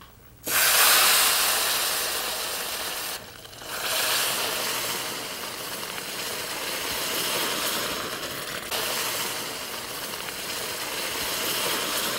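Boiling water poured into a pan of semolina roasting in hot butter, hissing and sizzling loudly as it hits the hot grains. It starts suddenly about half a second in, dips briefly about three seconds in, then carries on.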